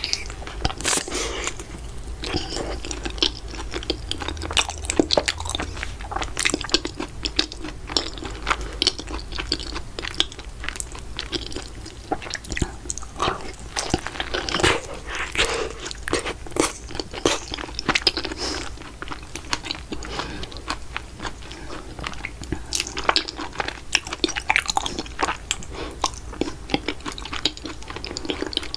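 Close-miked biting and chewing of strawberry mochi, a dense, irregular run of crisp, wet crunching clicks.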